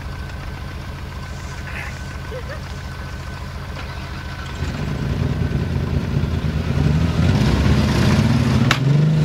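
An old Jeep's engine idles steadily, then revs up about halfway through and keeps revving up and down under load as it pulls a stuck SUV out of mud on a tow strap. A sharp click comes near the end.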